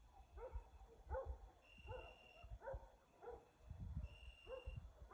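A dog barking faintly and repeatedly, short barks falling in pitch, roughly one every half second to second.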